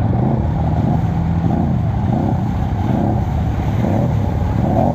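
Four-wheeler (ATV) engine running steadily while riding, its pitch rising and falling slightly with the throttle.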